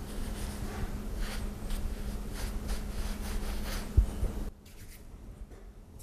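Cloth hand towel being rubbed over hands, a run of brushing, rustling strokes, with a single soft thump about four seconds in. The sound then drops off abruptly to quiet room tone.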